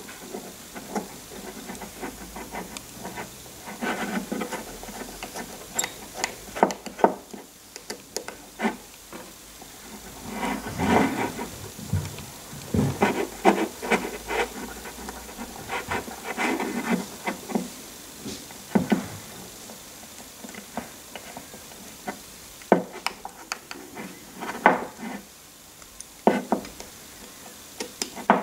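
Hex screwdriver turning machine screws through an anti-backlash nut into the actuator's top plate, driven in only loosely: scattered small clicks, taps and short scrapes of the tool and screws against the parts.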